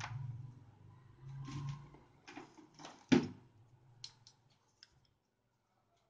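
Light clicks and knocks of tools being picked up and handled on a workbench, the loudest a sharp click about three seconds in, with a few small ticks after it. A faint low hum sits under the first two seconds.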